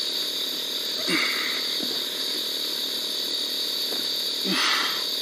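Steady, high-pitched chorus of night insects. Two brief low sounds with a falling pitch break in, about a second in and near the end.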